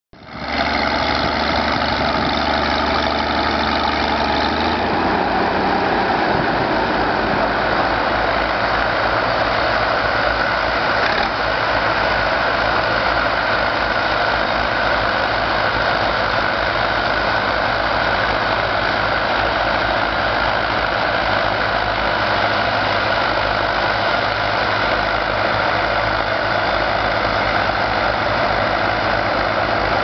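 Doe Triple D tractors, each with twin Fordson diesel engines, running steadily under load while pulling ploughs through the soil. The low engine note changes about five seconds in.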